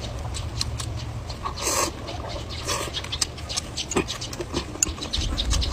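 Close-up eating sounds of a person slurping spicy noodles and chewing with a full mouth: wet smacking clicks and one longer, hissing slurp a little under two seconds in.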